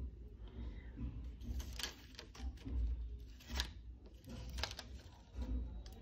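Flat flexible ribbon cables being handled, rustling, with several short sharp clicks at irregular intervals.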